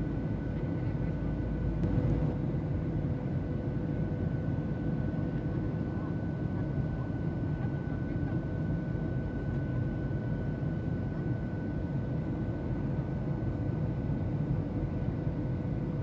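Steady low drone of an airplane's engines, with two faint steady tones held above the rumble.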